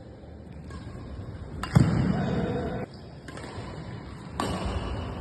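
Badminton racket strikes on a shuttlecock during a rally: a sharp crack a little under two seconds in and another about two and a half seconds later.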